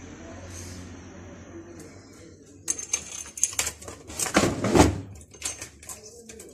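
Chainsaw chain rattling and clinking as it is lifted off the guide bar and handled, a run of metallic clicks and jingles that starts about three seconds in after a low steady hum, loudest around the middle.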